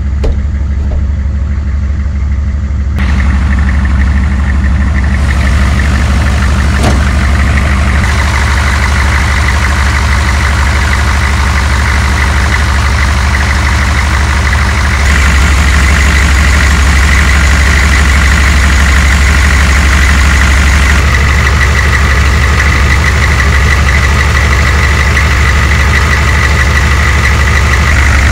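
Turbocharged 6.2L diesel V8 of a modified 1982 Chevrolet K20 idling steadily, with a steady high whine over the engine's low drone. It gets louder about three seconds in and again about halfway through, with a single short click about seven seconds in.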